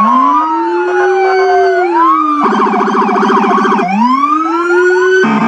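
Several emergency-vehicle sirens sounding together, their tones sliding up and down over one another in a slow wail. About two and a half seconds in, one switches to a rapid yelp for just over a second, then returns to a rising wail, and breaks into the rapid yelp again near the end.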